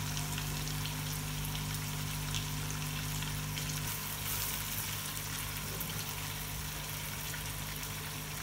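Fish pieces shallow-frying in oil in a steel pot: a steady sizzle with light crackling. About halfway through, a wooden spoon stirs the pieces.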